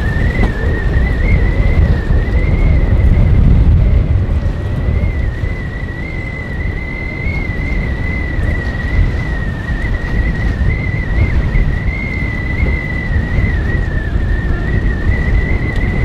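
Strong wind buffeting the microphone: a loud, deep rumble that swells and eases. Over it runs a thin high whistle that wavers slightly around one pitch throughout.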